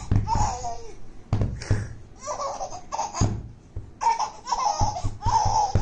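Baby laughing in a run of short bursts of giggles, over and over.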